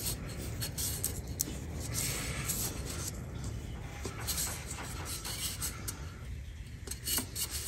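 A new spin-on oil filter being turned onto its mount by hand, with faint rubbing and scraping of the hand on the filter can and a few light clicks, over a steady low hum.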